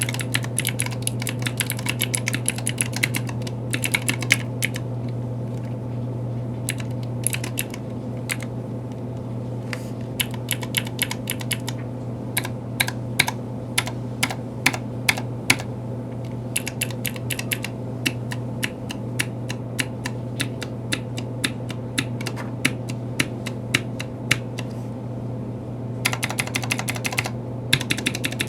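Typing on an OLKB Planck ortholinear mechanical keyboard with Kailh Pro Light Green clicky switches: runs of rapid key clicks that grow sparser in the middle stretch and quicken again near the end, over a steady low hum.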